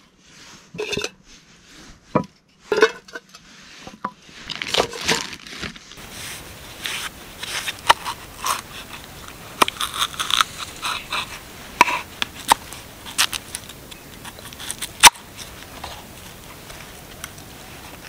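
A kitchen knife cutting vegetables, green bell pepper among them, on a wooden cutting board: irregular taps and short crunches as the blade goes through and strikes the board, with one louder knock about fifteen seconds in.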